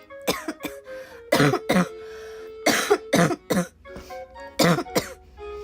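A young woman coughing repeatedly, about ten coughs in short clusters of two or three.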